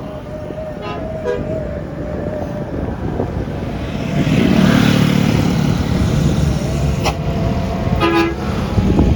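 Tour bus with a multi-tone telolet horn: short horn toots about a second in and again near the end, and between them the bus's engine rumbles loudly with a hiss for a few seconds.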